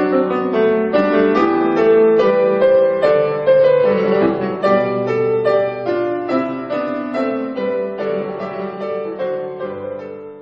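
Piano music, a run of single notes in a flowing melody, fading out over the last couple of seconds.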